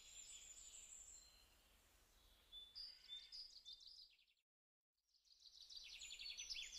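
Near silence with faint bird chirps and quick trills in the background; the sound cuts out to dead silence for about a second just past the middle.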